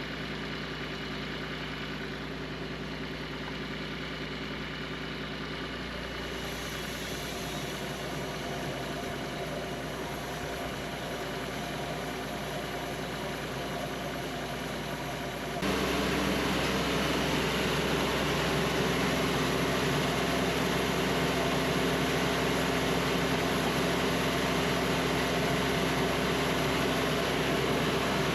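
Engine of a Cook's band sawmill running steadily, with a steady hum. About halfway through it steps up suddenly to a louder, brighter run that then holds steady.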